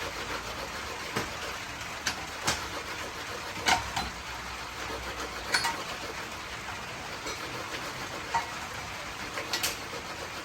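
Irregular light knocks and clinks of metal and tool handling, about one a second, a few of them with a short metallic ring, over a steady background hiss.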